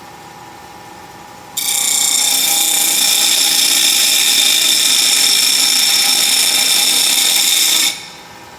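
Bench grinder running with a steady hum; about one and a half seconds in, a piece of metal is pressed to the spinning abrasive wheel, giving a loud, harsh grinding hiss for about six seconds. It stops suddenly near the end, leaving the motor and wheel running.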